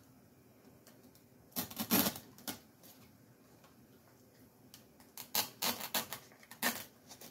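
Stiff coconut palm leaf strips rustling and crackling as they are handled, bent into loops and pushed into a floral foam block. There are two spells of it, one about two seconds in and a longer one from about five to seven seconds.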